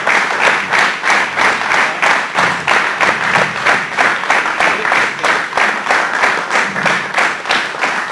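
Audience applauding: many hands clapping in a steady, dense run.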